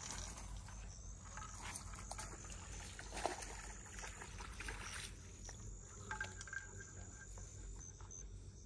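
Faint night insects, crickets, chirring steadily, with a few small clicks and rustles over them.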